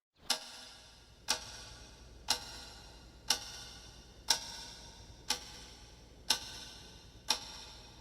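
Clock ticking, one sharp tick a second, over a faint steady low hum.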